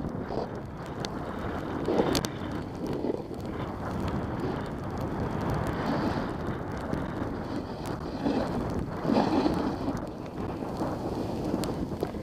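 Wind buffeting the microphone of a camera carried by a downhill skier, mixed with the skis sliding and scraping over packed snow, which swells louder every few seconds.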